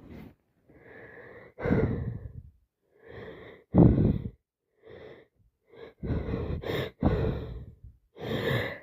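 A person with a heavy head cold takes a run of about a dozen noisy, wheezing, gasping breaths, some short and some drawn out, the hitching breaths that come before a sneeze.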